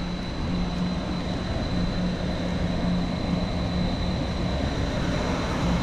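Wave pool's wave-generating machinery running, a steady rushing noise with a low hum: the noise that warns surfers a set of waves is coming.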